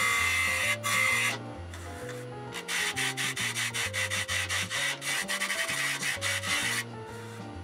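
Turning tool cutting a spinning Kentucky coffee tree bowl on a wood lathe, heard in fast-forward: a scraping hiss that turns into a dense rapid chatter, breaking off about a second and a half in and again near the end. Soft background music with a bass line plays underneath.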